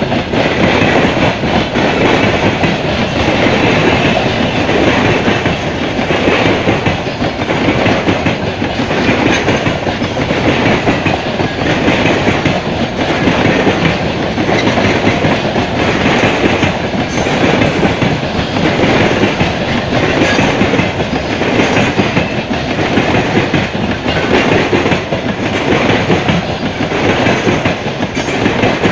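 Freight train rolling past at close range, its wagon wheels clacking over the rail joints in a steady, repeating rhythm.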